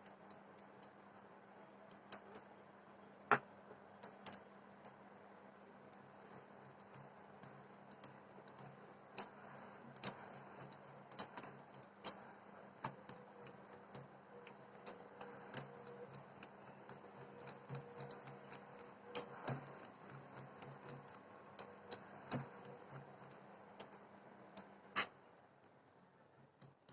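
Spoon clicking and scraping against a bowl while mixing flour into a thick semolina cake batter, in scattered, irregular clicks.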